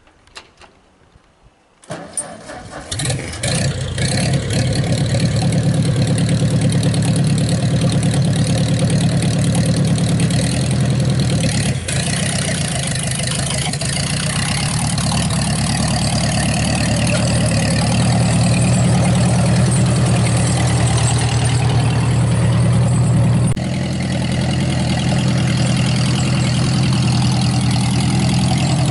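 Vintage Ford N-series tractor's four-cylinder engine cranked and started about two seconds in, then running steadily. About three quarters of the way through the engine note shifts slightly as the tractor moves off.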